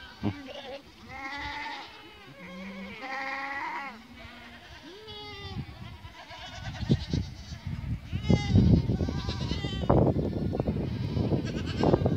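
Goats and kids bleating: several wavering calls in the first five seconds and more around eight seconds in, as kids call for their mothers. From about seven seconds a loud rough rustling noise takes over.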